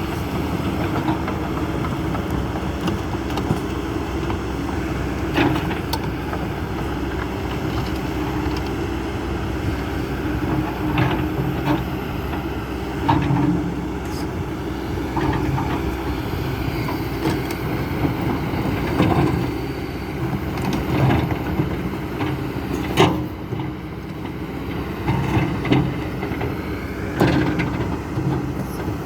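Kobelco SK200-10 hydraulic excavator's diesel engine running steadily while working, with sharp knocks scattered through, about ten of them, the loudest a little past the three-quarter mark.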